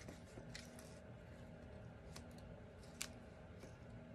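Faint handling of cardstock: a few soft clicks and rustles as a sentiment strip on foam dimensionals is set onto a card and pressed down, with a sharper click about three seconds in. A faint steady hum lies underneath.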